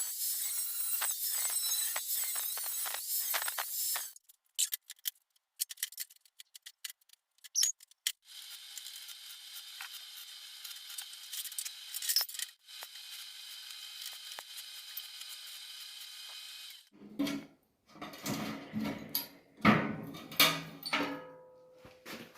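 Workshop tool noise in separate stretches: a harsh, high-pitched noisy sound, then scattered sharp clicks, then a steady hiss lasting several seconds, and irregular knocks and clatter near the end.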